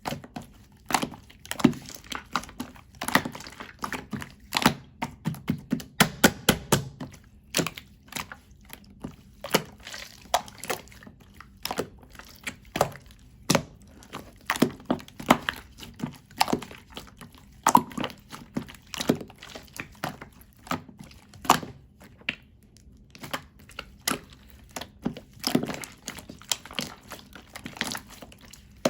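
Slime being pressed and squeezed by hand, giving irregular sticky clicks and pops, a few each second.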